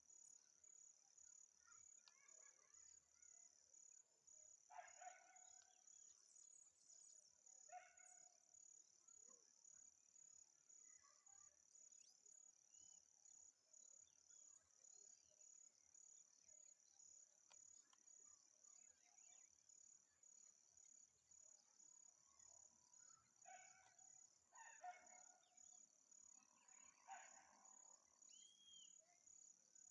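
Faint nature ambience: a steady, high-pitched insect chorus, with bird calls every few seconds.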